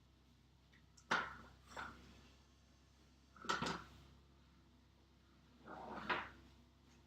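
A few separate knocks and clunks, as of hard objects being handled and set down: the sharpest about a second in and about three and a half seconds in, and a longer rattling one near the end.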